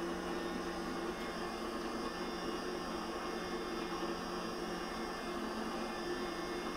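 Electric stand mixer running steadily with its beaters in cake batter, giving a constant motor hum.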